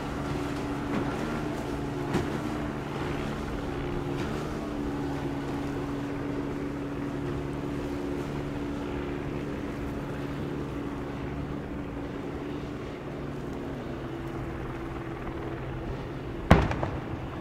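A steady engine drone with wind on the microphone, then, about a second before the end, a single loud boom from a WWII coastal gun firing a salute, with a short echoing tail.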